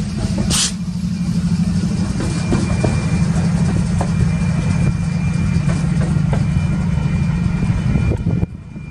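Diesel locomotives of a Union Pacific coal train passing close by: a heavy, steady low engine drone with scattered clicks of wheels over the rail. The sound drops away sharply near the end.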